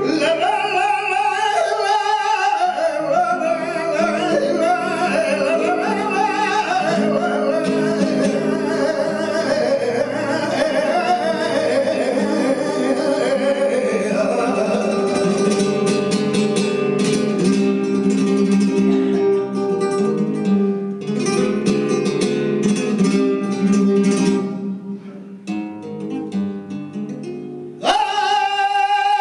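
Flamenco singing por fandangos: a male voice sings long, ornamented lines over acoustic guitar. About halfway through the voice drops out and the guitar plays alone with quick strums. It then thins out quietly before the voice comes back in near the end.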